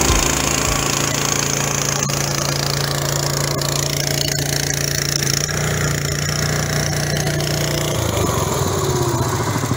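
Vermeer walk-behind chain trencher at work, its small gas engine running steadily while the digging chain cuts a trench. About eight seconds in, the engine note drops lower.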